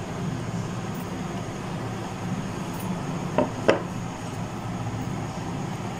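Two light clicks about three and a half seconds in, a small ceramic bowl knocking against a glass mixing bowl as eggs are tipped in, over a steady room hum.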